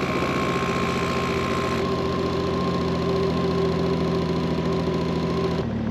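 Snowmobile engine idling steadily after being started. The sound changes abruptly near the end.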